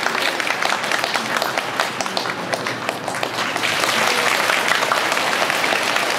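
Audience applauding after a figure skating performance: steady dense clapping that swells a little about four seconds in.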